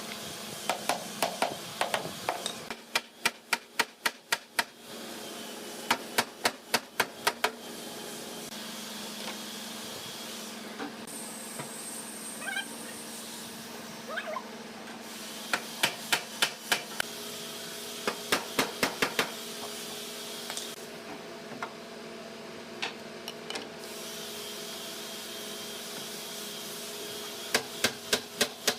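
Rapid runs of sharp strikes on wood, about five a second in bursts of six to ten, repeated several times over a steady machine hum.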